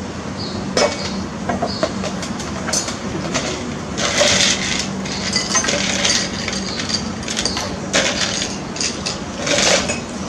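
Ice cubes clinking and rattling against glass and metal as they are scooped from an ice bucket and tipped into a glass of tea: scattered sharp clinks, with a denser, louder rattle about four seconds in.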